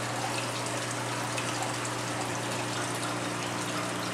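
Aquarium filters and pumps running: a steady wash of moving water with a low, even hum underneath.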